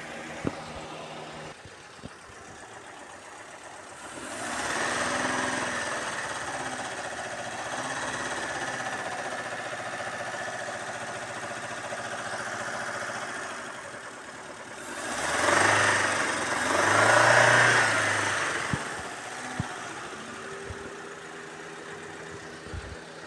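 Fiat Uno Mille's carburetted engine running. Its speed is raised for several seconds about four seconds in, then twice more in quick surges before it settles back. The engine has a noise from inside and smokes heavily from burning oil.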